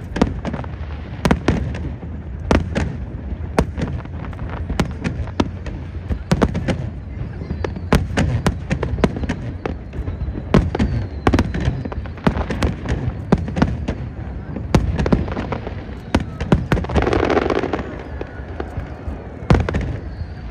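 Fireworks display: a rapid, irregular series of sharp bangs and crackles over a rolling rumble, with a few louder clusters.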